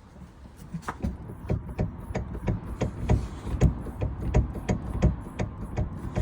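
Irregular rattling knocks, several a second, from the rear of a BMW F30 320d over a low rumble. The owner traces the rattle to a worn tailgate gas strut knocking in its mount.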